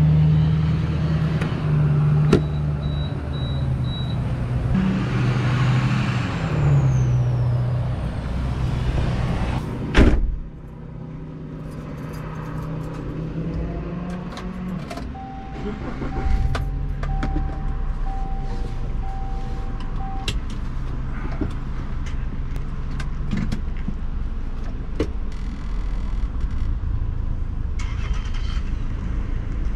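A car door slams shut about ten seconds in, and the sound becomes that of the inside of an old Subaru's cabin, where a dashboard chime beeps in an even on-off pattern for about five seconds. A steady low hum from the car runs under it all.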